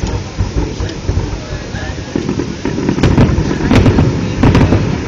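Aerial firework shells bursting in a rapid string of bangs and crackles, densest and loudest from about three to four and a half seconds in.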